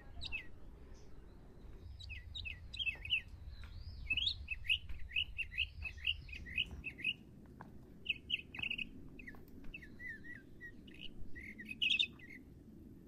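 Small birds chirping and twittering in quick runs of short, high calls, thickest in the first half and again near the end.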